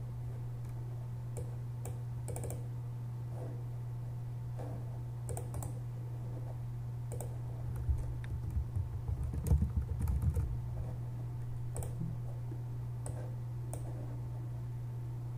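Computer keyboard typing and mouse clicks, with a quick run of keystrokes about halfway through. A steady low electrical hum from the microphone runs underneath.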